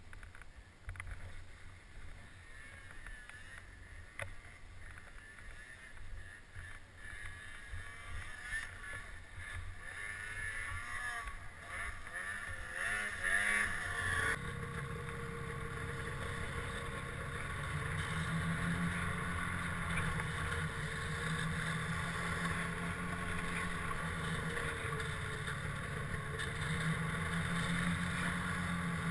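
Snowmobile engines: a low engine rumble, with a second snowmobile's engine rising in pitch and getting louder as it comes up close about halfway through. Then an abrupt change to the steady, louder running of the snowmobile carrying the microphone, under way.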